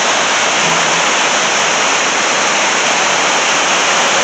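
River rapids and white water rushing over a rocky ledge in a steady, unbroken roar of water.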